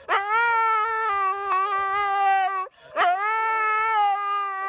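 A husky howling: two long howls, each opening with a quick rise in pitch and then held steady, the second starting about three seconds in.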